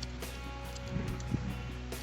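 Background music with steady held tones, and a few faint clicks partway through.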